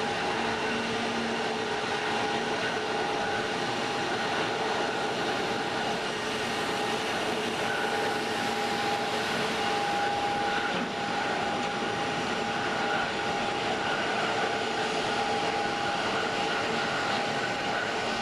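Jet engines of an Airbus A319 airliner landing, heard from the airport perimeter: a steady rushing noise with a few held whining tones. The aircraft touches down about halfway through and rolls out on the runway.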